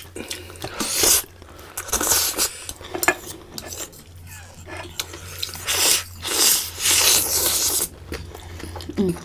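Eating sounds: black bean noodles being slurped and chewed, with a metal fork and spoon clinking and scraping in a metal bowl. The slurps come as loud noisy bursts, the longest about two thirds of the way through.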